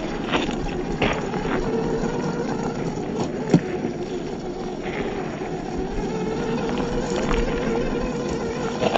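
Electric motor and geared drivetrain of a 1/14-scale RC Land Rover 4WD whining steadily as it drives off-road, with a few sharp ticks and knocks from the wheels and chassis, the loudest about three and a half seconds in.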